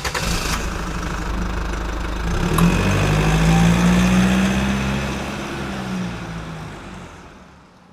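A motor vehicle's engine running, growing louder and rising in pitch a couple of seconds in, then fading away over the last few seconds.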